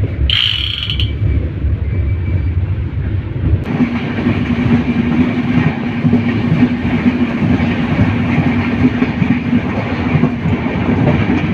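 Moving passenger train: a low rumble with a brief high-pitched squeal about half a second in. A few seconds in, the sound changes abruptly to a steady hum over rattling rail noise.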